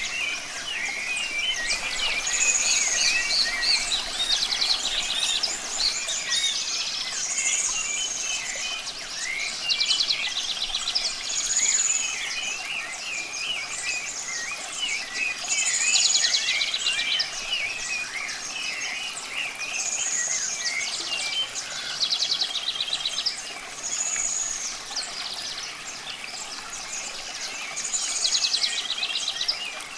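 Several songbirds singing at once: one repeats a short phrase of a high arching note and a fast trill every few seconds, among many shorter, lower chirps. Under them runs a steady hiss of running water.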